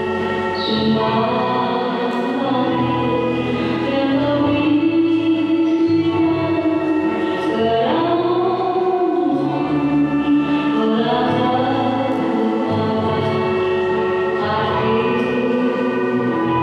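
Choral music: several voices holding sustained chords over low bass notes, the harmony shifting every few seconds, with a rising slide in pitch about eight seconds in.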